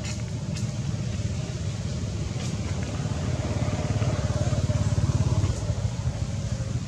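A motor vehicle's engine running nearby, a low pulsing rumble that grows louder toward about five seconds in and eases off near the end.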